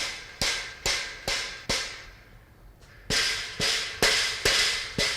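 Rubber mallet striking a steel post coupler to drive it down onto a shelving post: two runs of about five sharp blows each, roughly two a second, with a pause of over a second between them.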